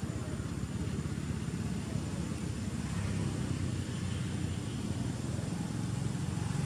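A steady low rumble with a fast flutter.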